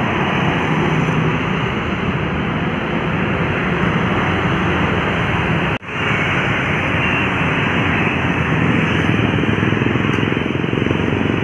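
Steady roadside traffic noise: vehicle engines and tyres running past, cutting out for a moment about six seconds in.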